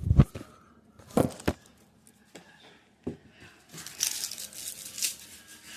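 Several sharp knocks on a cutting board, then about a second and a half of papery crinkling and tearing, as garlic and onion are cut and peeled.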